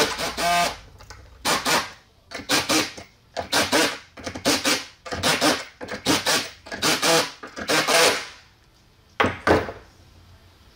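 Milwaukee Fuel cordless drill/driver running in about a dozen short bursts as it spins nuts down onto the studs of a copper terminal block; the bursts stop about nine seconds in.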